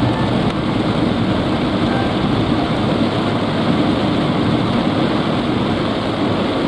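Steady, loud noise inside a car driving through heavy rain: rain on the roof and windshield mixed with tyres on the wet road.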